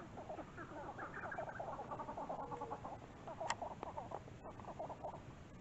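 A flock of birds in the trees calling with many short, overlapping clucks and chirps, with a single sharp click about three and a half seconds in.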